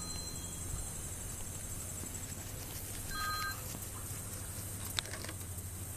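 Steady outdoor background with a high hiss, broken by a short electronic beep of two tones together about three seconds in, and a single sharp click about five seconds in.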